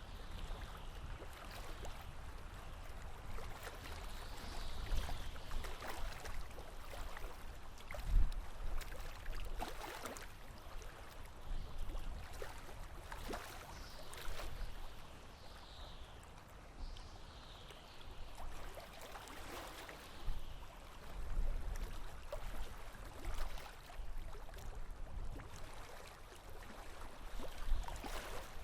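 Water lapping and gurgling against a sailboat's hull in uneven sloshes, with a sharp knock about eight seconds in and another near the end.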